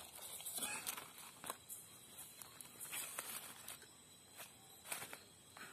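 Soft, scattered rustling and crinkling of a roasted banana-leaf wrapper being pulled open and handled, fading toward the end.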